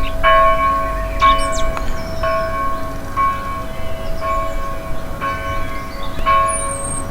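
A single church bell tolling steadily, about one stroke a second, each stroke ringing on into the next. Birds twitter faintly in the background, with a high chirp about a second in and another near the end.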